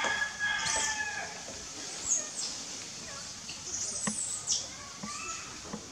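A drawn-out animal call that sinks slightly in pitch and ends about a second in, followed by scattered high bird chirps and a few light ticks.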